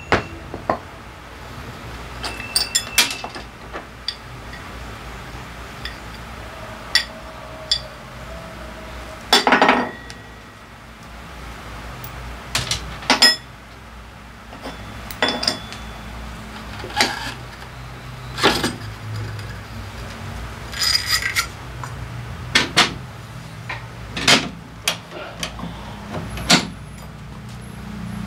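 Metal hand tools and scooter CVT drivetrain parts clinking and knocking, irregular separate clanks, some ringing briefly, with two short rattling clusters, as the clutch and driven pulley assembly is taken off.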